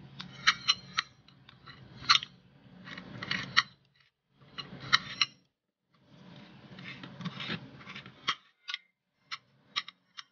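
Metal spoon and fork clinking and scraping against a ceramic plate of rice: a string of sharp clinks, with stretches of scraping between them.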